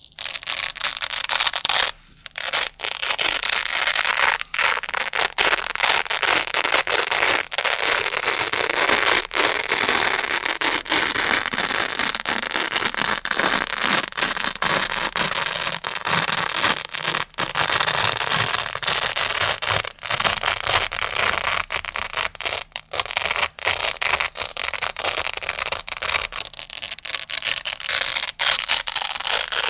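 Grey Velcro pad scratched and rubbed close to the microphone, a dense crunchy crackle of hook-and-loop fastener with brief breaks between strokes.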